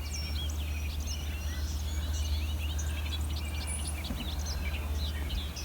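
Several small birds chirping, many quick overlapping chirps and twitters, over a steady low rumble.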